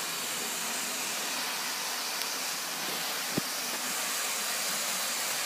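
Electric model train running on its track: a steady whirring hiss, with a single short knock about three and a half seconds in.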